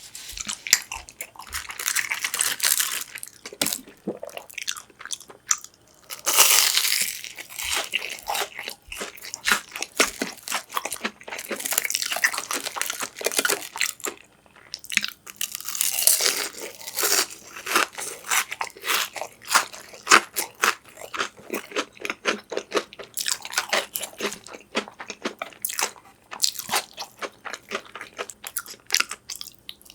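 A person eating close to the microphone, chewing and biting into crunchy food with runs of rapid, crisp crackling and short pauses between mouthfuls.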